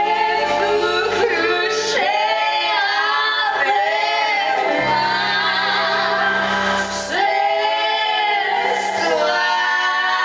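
Women singing over instrumental accompaniment, from an ensemble musical-theatre number.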